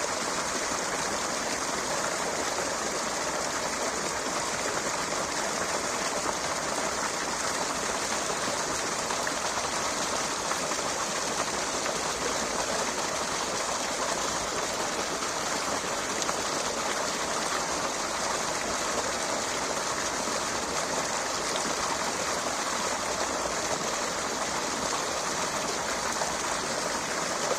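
Running water rushing steadily, an even hiss that never changes, with no single splashes or drops standing out.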